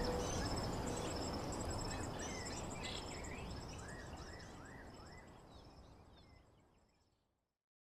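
Forest ambience: insects trilling steadily at two high pitches, with birds chirping in short rising-and-falling notes over a low rumble. It all fades out to silence about seven seconds in.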